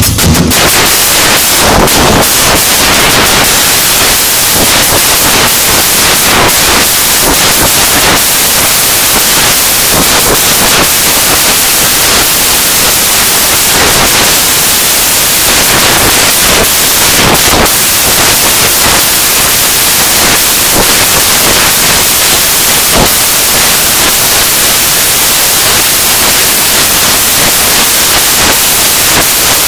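Loud steady hiss like static, with a few brief crackles.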